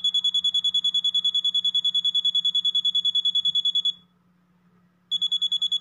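Electronic alarm buzzer of a homemade alarm clock unit sounding, a high-pitched, rapidly pulsing beep. It stops about four seconds in and starts again a second later.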